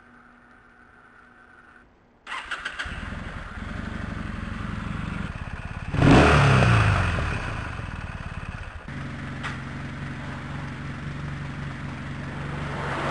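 Kawasaki W800's air-cooled parallel-twin engine with an aftermarket Remus silencer, started on the starter about two seconds in after a faint hum and catching almost at once. It idles, is blipped once with a rising and falling rev about six seconds in, then settles back to a steady idle.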